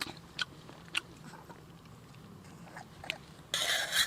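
Eating sounds: a few small mouth clicks and smacks of chewing, then a short loud rushing burst near the end.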